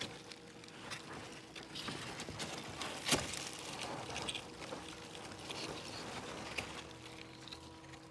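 Cardboard egg flats being handled and shifted: dry rustling and crackling with scattered small clicks and one sharp knock about three seconds in.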